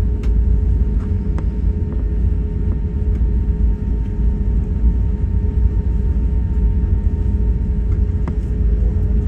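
Jet airliner's engines running with a steady, loud low rumble and a constant hum over it, without rising or falling.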